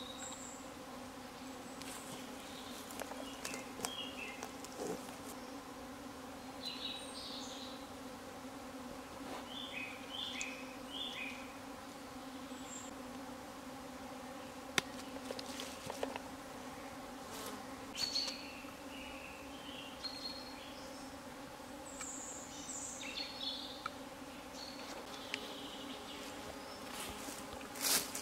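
Steady buzzing drone of insects, an even low hum, with short high chirps scattered over it and a few sharp clicks and rustles near the end.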